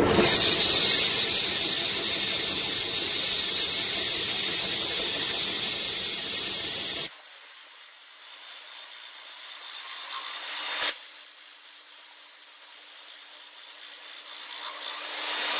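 Metal lathe running and cutting: a loud, hissing cutting noise that stops abruptly about seven seconds in, leaving a quieter steady machine hum that swells and fades twice.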